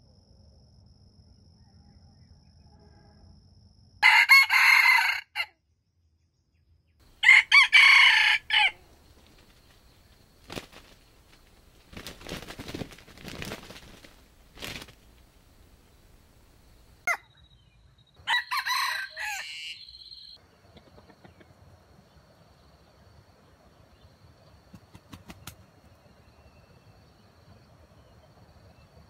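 A red junglefowl-type rooster crows three times, each crow short and loud, about four, seven and eighteen seconds in, with softer sounds between the second and third.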